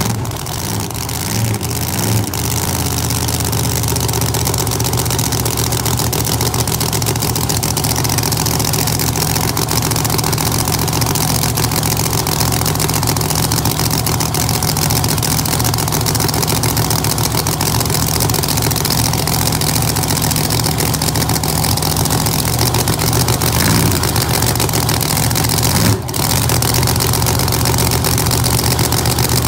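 Holden HG drag race car's engine catching and settling into a loud, steady idle over the first couple of seconds. Near the end there is a brief blip of the throttle and a sharp crack.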